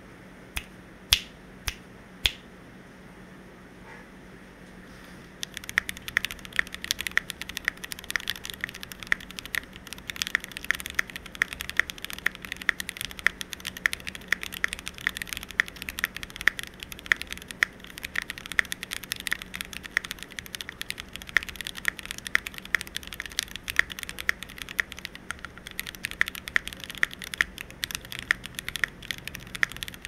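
Mechanical keyboard being typed on: an Ajazz AC067 with an aluminium plate, lightly lubed SP-Star Sacramento switches and ABS Cherry-profile keycaps. There are four separate keypresses in the first couple of seconds, a short pause, then fast continuous typing from about five seconds in.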